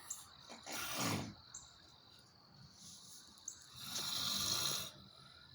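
A sleeping man snoring: two snoring breaths about three seconds apart, the second longer and louder.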